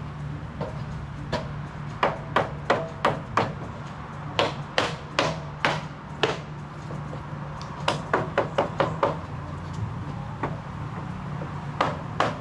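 Hammer driving nails into the timber of a wooden stair frame: four bursts of sharp blows, about three a second, some with a ringing note.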